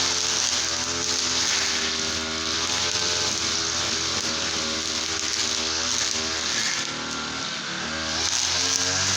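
Two-stroke brush cutter engine running loudly, its speed wavering up and down. It eases off about seven seconds in and picks up again near the end.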